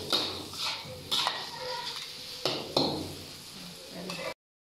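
Metal ladle and spatula scraping and clanking against a wok as a large batch of fried noodles is tossed, in irregular strokes; the sound cuts off abruptly near the end.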